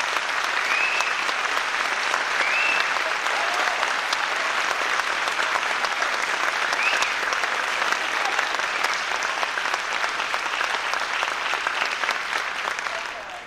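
Theatre audience applauding steadily, with a few short high calls from the crowd over the clapping; the applause dies away near the end.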